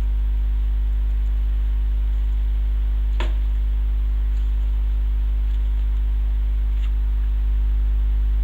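Loud steady electrical hum with a ladder of steady overtones, unchanging throughout, with a few faint clicks about three seconds in and again later.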